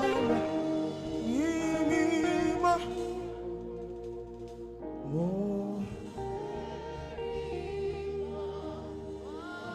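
Saxophone playing a slow gospel worship melody, with held notes, vibrato and upward scoops into the notes, over a steady musical backing.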